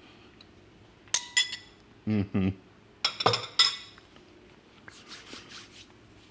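Metal spoon clinking against a ceramic bowl: two ringing clinks about a second in and a quick cluster of three or four more about three seconds in. Between them, two short hummed "mm" sounds from a man tasting the ice cream.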